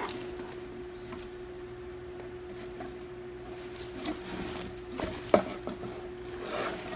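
Hands handling and opening a fabric camera backpack: soft rustling and rubbing of the cloth, with a few light knocks, the sharpest about five seconds in, over a steady hum.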